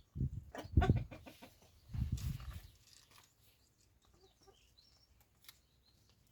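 Domestic chickens clucking, with two bouts of deep thumping and rustling near the microphone in the first three seconds.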